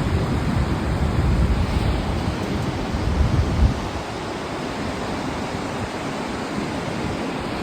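Strong wind of about 40 mph sustained buffeting the camera microphone: a loud, steady rush with heavy low rumbling gusts.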